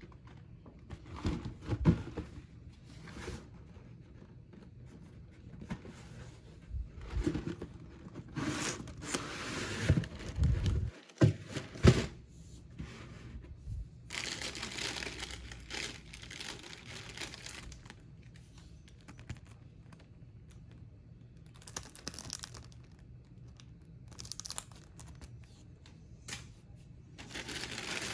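Packaging being handled during an unboxing: paper or plastic wrapping rustling, crinkling and tearing, with several sharp knocks of the box and its contents being handled.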